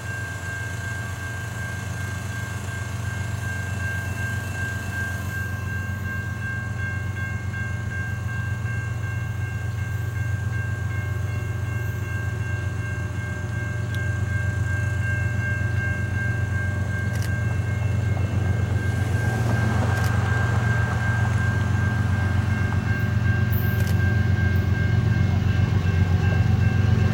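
Diesel freight locomotive approaching, its low engine rumble growing steadily louder, with a steady high ringing tone throughout.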